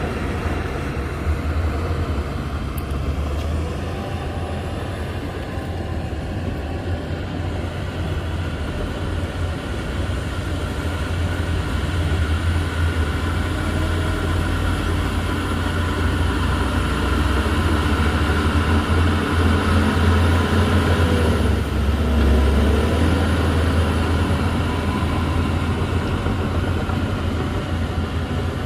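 Heavy diesel engine of earthmoving machinery running steadily: a deep low drone with a fainter higher whine over it, growing somewhat louder about halfway through.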